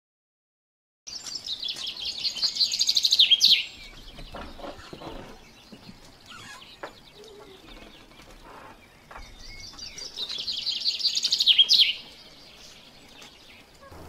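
A songbird singing: a rapid series of high notes that grows louder and ends in a quick downward flourish, sung twice about eight seconds apart, with softer chirps between.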